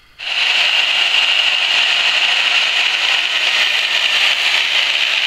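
Angle grinder with a thin cutoff wheel cutting into the steel weld of a small hydraulic cylinder: a loud, steady high-pitched whine that starts suddenly and holds even. The wheel is digging out a leaking weld that has no penetration.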